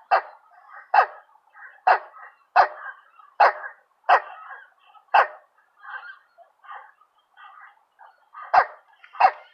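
Recorded waterbird calls played through the small speaker of an interactive bird-call sign: a series of loud, harsh calls about a second apart with softer calls between. They fade for a couple of seconds, then two loud calls come near the end.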